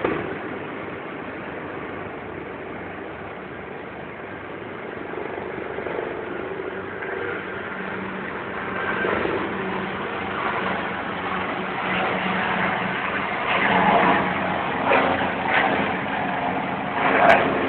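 Helicopter turbine and rotor noise, steady and growing louder over the second half, with a few sharper loud peaks near the end.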